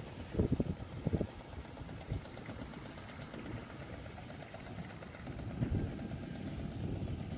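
Tractor engine running steadily, with a few irregular low thumps in the first second and again near the end.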